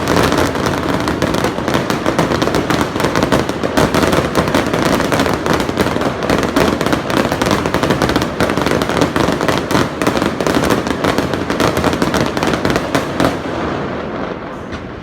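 Fireworks display: a dense, unbroken barrage of rapid bangs and crackling, easing off near the end.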